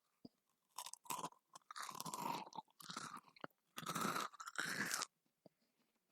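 Close-miked crunching as a person bites into and chews a crunchy cookie: a run of loud crunches between about one and five seconds in.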